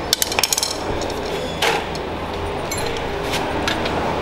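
Metal hand tools clinking against the pump unit and its bracket while it is being unbolted: a quick run of sharp clicks at the start, then single clinks about a second apart.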